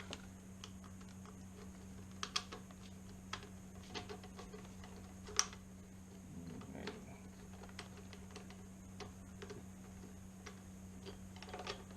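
Irregular small metallic clicks and taps of door-lock hardware being handled and its mounting screws driven in by hand, with one sharper click about five seconds in. A steady low hum runs underneath.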